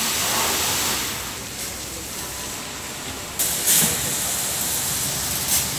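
High-pressure water jets of an automatic car wash spraying a car, a steady hiss. It drops back about a second in and returns suddenly and louder about three and a half seconds in, with short bright spurts.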